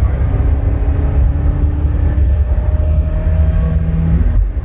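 Gemini car's engine running at high revs at highway speed, heard from inside the cabin as a steady low drone mixed with road noise. It is revving hard in top gear because the gearbox has no fifth gear.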